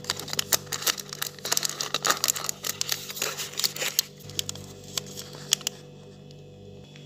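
Crinkling and rustling of packaging as a Cadbury Dairy Milk bar in its plastic wrapper is pulled out and handled. The crackling is dense for about four seconds, then thins to a few scattered crackles.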